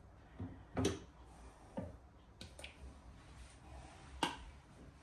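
A few faint, sharp taps and clicks of kitchenware, five or so spread out, the loudest about a second in.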